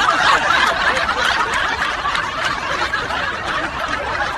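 People laughing and snickering, a continuous jumble of laughter.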